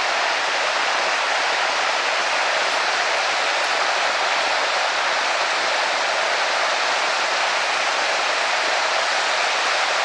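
Steady, even rushing of water from a large waterfall, about 30 metres high.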